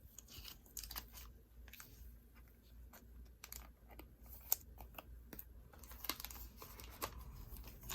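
Quiet rustling, tapping and crinkling of baseball cards and pack wrappers being handled and stacked, in short irregular clicks.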